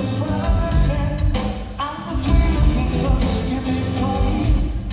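Live rock band playing, with a male lead vocal singing over drums, bass and electric guitar, heard from the audience through a phone's microphone.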